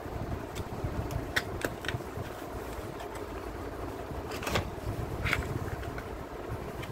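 A thin white cardboard box being handled and opened by hand: a few short scrapes and taps of card as it slides and its flaps are folded back, the loudest about four and a half and five seconds in. A steady low hum runs underneath.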